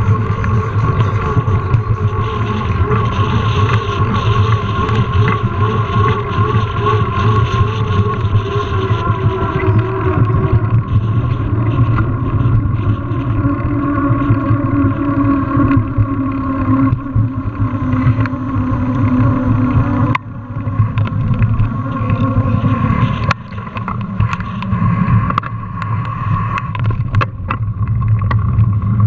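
Mountain bike ridden over paved ground, heard through a GoPro carried on the bike or rider: a loud, steady rumble and hum with wind on the microphone, its pitch drifting slowly, and a couple of sharp knocks about two-thirds of the way through.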